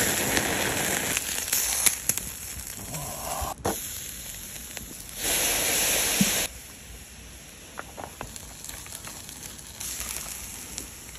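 Wagyu beef and then scallops sizzling on a wire grill over charcoal, with the charcoal crackling and giving sharp pops. The sizzle swells louder for about a second, a little over five seconds in.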